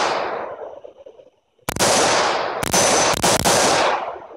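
AR-15 rifle in .223 Wylde with a muzzle brake being fired semi-automatic: the echo of one shot dies away, then after a pause a quick string of sharp shots rings out about two seconds in and fades near the end.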